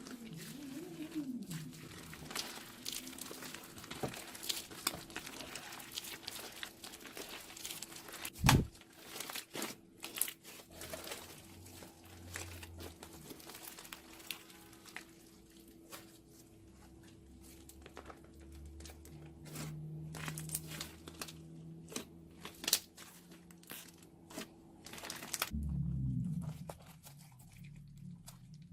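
Slime being squeezed out of a plastic piping bag: the bag crinkles and the slime crackles with many small sharp clicks and pops, one snap much louder than the rest.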